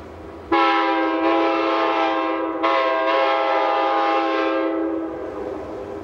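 Alaska Railroad passenger train's locomotive horn sounding two long blasts, a loud chord of several notes that starts suddenly about half a second in, breaks briefly, then sounds again and fades out near the end.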